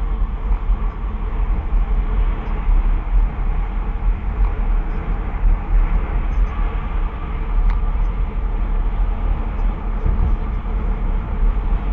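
Steady road and tyre noise inside a moving car's cabin, recorded by a dashcam's microphone, with a heavy low rumble.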